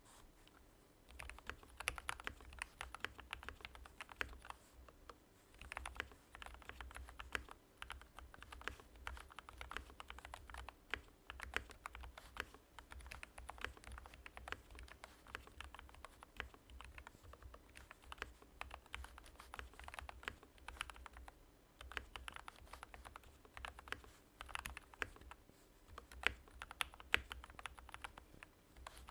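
Typing on an RK84 mechanical keyboard fitted with Gateron Black milky-housing linear switches: a quick, continuous run of keystroke clacks that starts about a second in, broken by short pauses.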